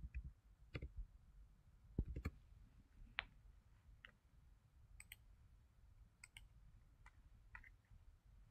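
Faint, scattered clicks of a computer mouse and keyboard, a dozen or so single clicks at uneven intervals over a faint low room hum.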